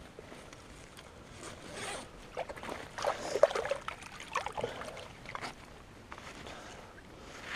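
A zip being pulled in several short, jerky runs, with rustling of fabric, loudest about halfway through.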